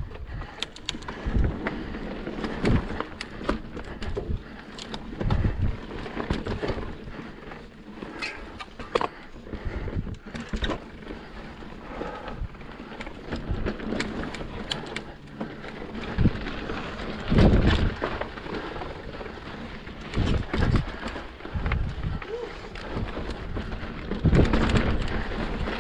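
Mountain bike being ridden over rocky trail: irregular clatter and knocks of tyres and frame over rock, with low thumps through the ride.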